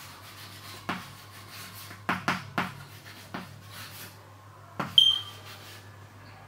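Chalk writing on a chalkboard: short taps and scrapes as letters are formed, a few strokes apart, with a brief high chalk squeak about five seconds in. A faint steady low hum runs underneath.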